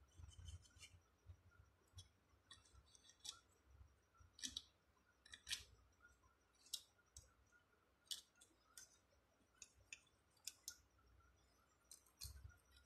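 Faint, irregular short scrapes and clicks of a small hand tool working the alternator's stator wire leads, cleaning them for soldering, with some low handling bumps.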